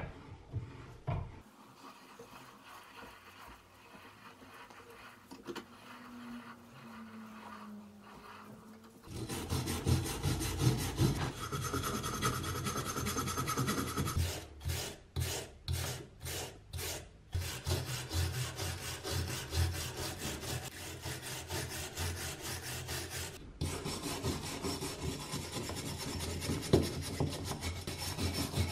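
Hand wire brush scrubbing rust off the steel jaw of an old adjustable wrench, in fast back-and-forth strokes, with a run of separate strokes about halfway through. The scrubbing starts about a third of the way in, after a quieter stretch that opens with a sharp knock.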